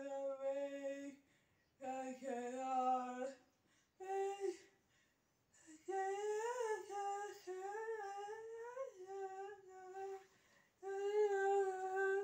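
A girl's voice singing a melody in short phrases of long held notes, with brief pauses between them.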